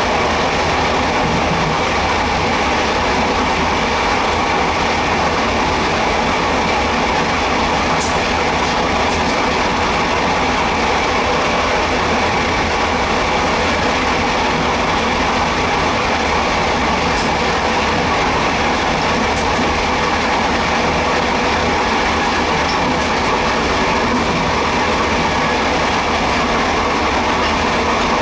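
Taiwan Railway non-air-conditioned ordinary-class passenger car running at speed: a steady rumble of wheels on rails and rushing air, heard through the open end door. A few brief high clicks come through now and then.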